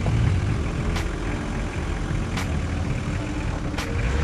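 Off-road 4x4 engine running steadily at low revs, with three sharp clicks about a second and a half apart.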